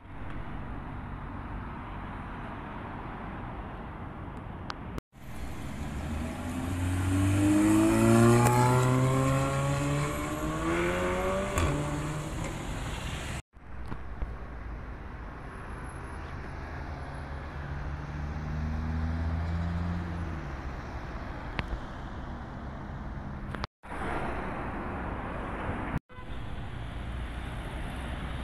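City street traffic in several short clips cut together. About five seconds in, a car accelerates hard, its engine note climbing in a few rising sweeps; this is the loudest part. Later another car's engine note rises and then stops as it pulls away.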